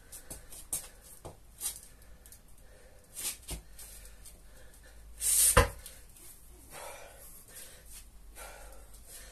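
A man breathing hard and raggedly, worn out from a long set of kettlebell swings, with a few light knocks. About five and a half seconds in comes the loudest moment: a loud breath ending in a sharp knock.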